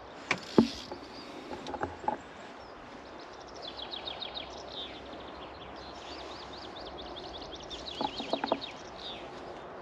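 A small songbird singing rapid runs of high repeated chirps over a steady background hiss. A sharp knock comes about half a second in, and a quick run of knocks comes near the end.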